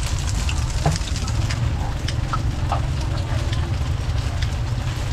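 Scissors snipping fried garlic chive cakes in a few short, sharp clicks, over a steady low rumble.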